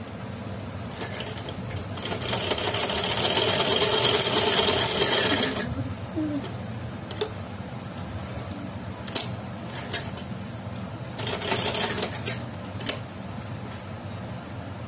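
Sewing machine stitching cloth: one run of about three and a half seconds, then a second short run of about a second later on, with a few sharp clicks from handling the machine and fabric in between.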